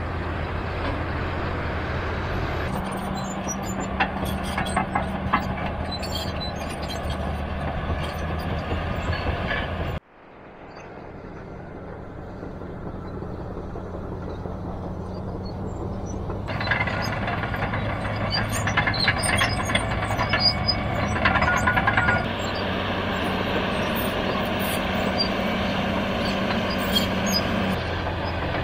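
Diesel engine of heavy earthmoving machinery running steadily, with scattered sharp metallic clanks. The sound cuts out abruptly about ten seconds in and gradually comes back up.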